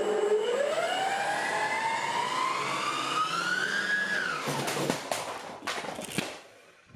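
Brushless outrunner motor spinning up a giant 500 mm 3D-printed PC fan: a whine that climbs steadily in pitch for about four seconds, then drops sharply. Several knocks follow as the fan tips over backwards.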